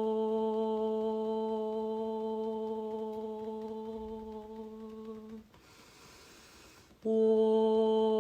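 A voice holding one long, steady chanted tone on a single pitch as a qigong breathing exercise. The tone fades as the breath runs out and breaks off about five seconds in. An inhale follows, then the tone starts again sharply about seven seconds in.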